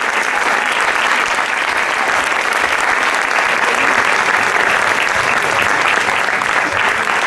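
Audience applauding steadily: many hands clapping in a dense, continuous patter.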